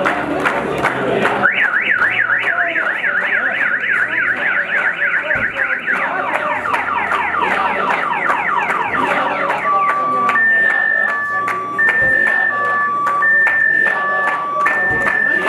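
Car alarm-style electronic siren cycling through its tone patterns over crowd noise: a fast up-and-down warble starts about a second and a half in, changes midway to quick repeated rising whoops, then to alternating two-pitch beeps near the end.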